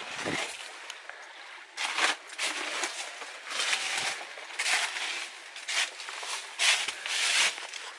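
Footsteps crunching on dry fallen leaves and loose rock, a crackly step every second or so at an uneven pace.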